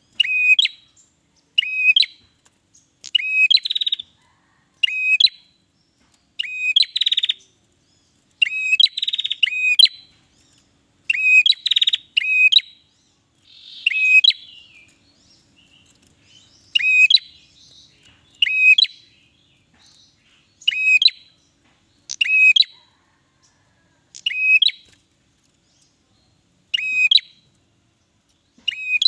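Ashy tailorbird calling over and over: sharp, ringing notes, often in quick pairs, about one call every second or two. Several calls run into a harsh rasp in the first half.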